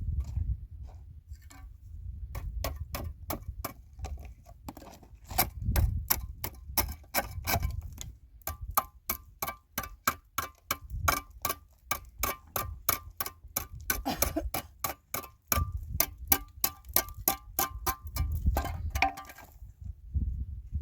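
Rapid, regular hard tapping, about four sharp strikes a second, many with a slight ringing tone; the strikes thin out near the end.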